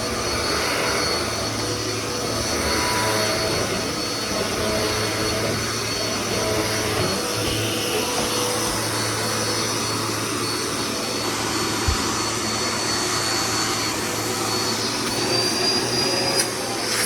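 Dirt Devil Power Max vacuum cleaner running steadily and loud, its motor giving a constant whine over a rush of air. A few short clicks come near the end.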